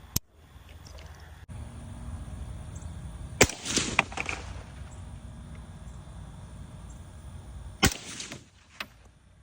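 Three suppressed .308 rifle shots fired through a SilencerCo Velos LBP suppressor, about four seconds apart, each a sharp crack with a short outdoor echo.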